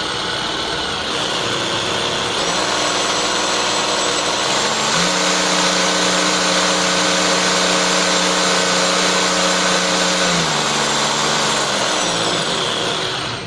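National EZ6813 29.4 V cordless rotary hammer drill running with no load in hammer mode at high speed, a steady motor whine. Its pitch steps up about five seconds in and back down about ten seconds in, and it stops at the end.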